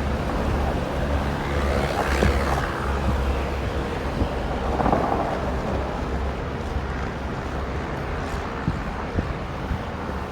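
Wind buffeting the microphone outdoors: a steady low rumble with gusts swelling about two seconds and five seconds in.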